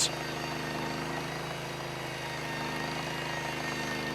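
Portable band sawmill's engine running at a steady speed.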